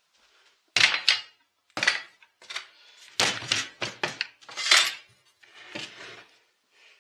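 Metal clanking and rattling as a Husqvarna 380 CD chainsaw is handled and set down on a table: a run of irregular knocks and clatters, the loudest about a second in and near the middle.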